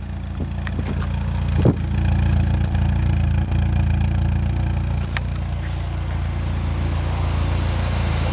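Citroen Saxo VTS 1.6 16-valve engine idling steadily through a decatted Saxsport sport exhaust, warm, with one short louder moment a little under two seconds in.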